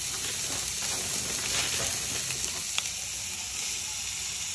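Boiled chicken and chopped vegetables (bell peppers, peas) frying in hot oil in a pan: a steady sizzle with crackling as the filling is stirred, and a light tick about three seconds in.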